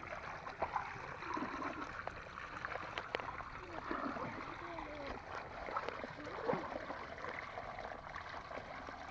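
Water splashing and trickling, with scattered small clicks and splashes and faint distant voices.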